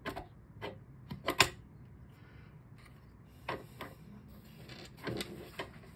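Light metal clicks and taps as the inner burr of a Wug2-83a coffee grinder is fitted by hand onto its shaft: a scattering of sharp ticks, the loudest cluster about one and a half seconds in, more near the middle and the end.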